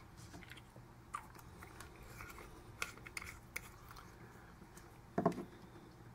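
Faint, scattered small clicks and taps of handling noise, with a slightly louder cluster of clicks about five seconds in.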